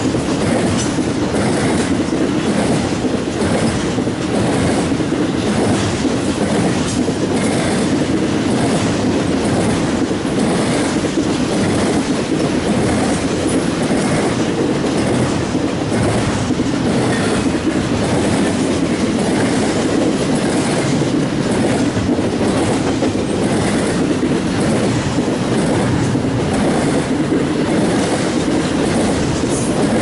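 Double-stack intermodal freight cars rolling past close by: a steady, loud rumble with the repeated clickety-clack of wheels passing over rail joints.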